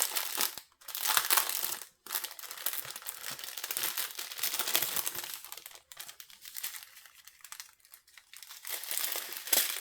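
Plastic packaging of a diamond painting kit crinkling as it is handled, with irregular bursts of rustle and brief pauses.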